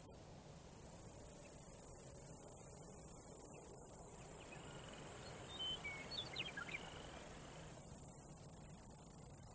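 Crickets trilling steadily at a very high pitch. A few short bird chirps come in around the middle.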